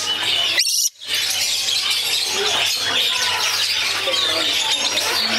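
Two lorikeets chattering and screeching excitedly: a dense, continuous stream of shrill high notes, broken briefly about a second in.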